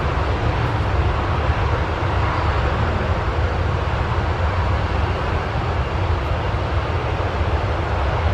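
Boeing 737-200's Pratt & Whitney JT8D jet engines, a steady rumble as the airliner rolls out down the runway after touchdown.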